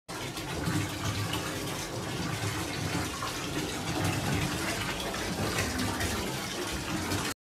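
Water sloshing and churning in a full bathtub as the room shakes in an earthquake. It makes a steady rushing noise with an uneven low rumble beneath, and it cuts off suddenly near the end.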